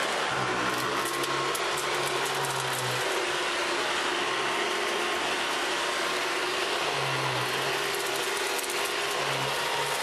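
Hoover Decade 80 upright vacuum cleaner running on a rug as it is pushed back and forth, with crackling clicks of debris being picked up, thickest from about half a second to three seconds in and again around eight seconds.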